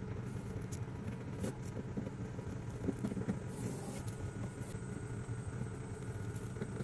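Steady low background rumble, with a few faint crackles as masking tape is peeled off a tinted plastic tail-light lens.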